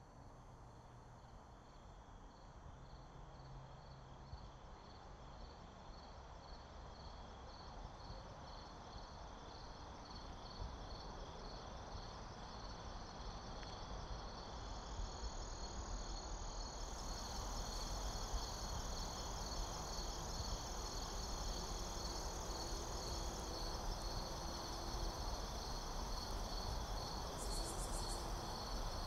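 Insects chirping: a steady, evenly repeated high chirp about twice a second, joined about halfway through by a higher continuous trill that stops about three-quarters of the way, over a background hiss; the chorus slowly grows louder.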